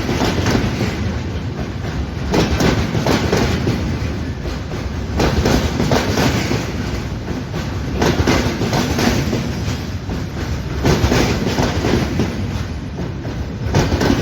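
Freight train rolling past, its wagon wheels clattering over rail joints in a loud, regular rhythm, surging about every two and a half to three seconds.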